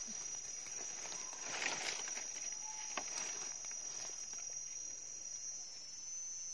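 A steady, high-pitched chorus of insects, with rustling in dry leaf litter about a second and a half in and a single sharp snap about three seconds in.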